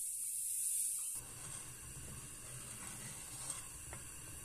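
Granulated sugar pouring from a bag into a pot of liquid, a steady hiss, for about the first second. Then a wooden spoon stirring syrup in an enamel pot, a quieter scraping and swishing with a few faint taps.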